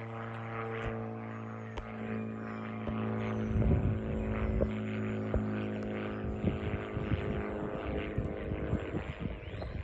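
A steady, even drone with a stack of overtones, like a distant engine or motor, runs throughout; from about three and a half seconds in it is joined by irregular crackling, rustling and knocks, like footsteps and handling in undergrowth.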